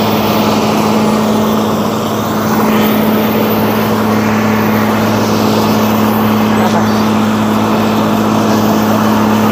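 Cold planer's diesel engine running steadily, a loud, even hum that holds one pitch throughout.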